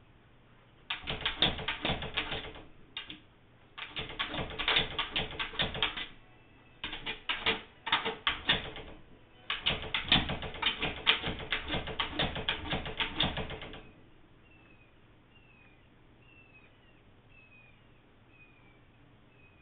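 Dogs scratching and pawing at a glass-paned door in four bouts of rapid clawing and rattling, the last one the longest, then stopping.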